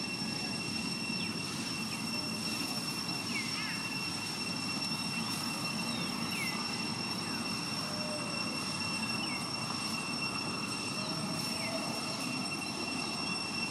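Steady outdoor ambience: a constant low rumble under a steady high-pitched whine, with short chirps every second or so.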